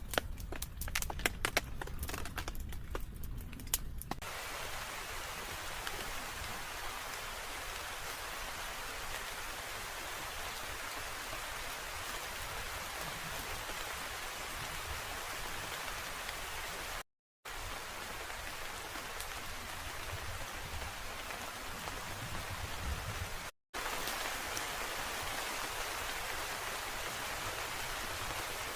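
Steady rain, an even hiss, with a run of sharp clicks and taps over the first four seconds. The sound cuts out briefly twice.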